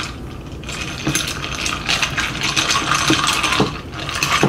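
Ice cubes clinking against a tall drinking glass as the drink is stirred with a wooden muddler: a run of short, irregular clinks, roughly one every half second to second.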